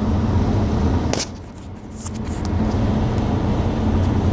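Steady low rumble of road and engine noise inside a moving car's cabin at highway speed. A short click comes about a second in, then the noise dips briefly and builds back.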